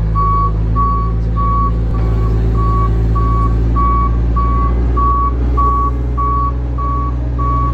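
Telehandler reversing alarm beeping at about two beeps a second, one steady pitch, over the steady low hum of its engine as it backs away carrying a loaded pallet.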